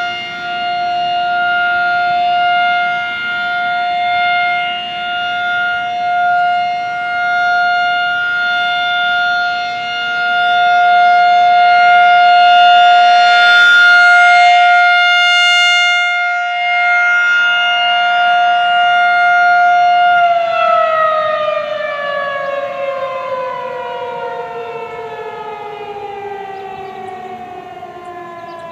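Federal Signal 2001-SRN rotating siren heard from a distance, sounding a steady Alert tone in its weekly test; the level swells and fades every few seconds as the siren head rotates. About twenty seconds in it winds down, the pitch falling steadily as it fades.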